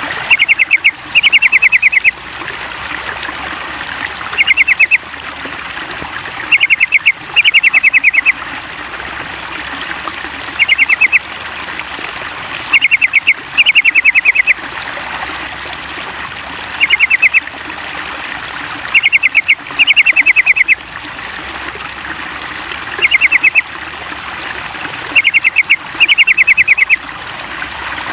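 Yellow-vented bulbul (trucukan) calling in rapid chattering runs of short notes, a short run followed by a longer one, repeating about every two seconds in a looped lure recording, over a steady trickle of running water.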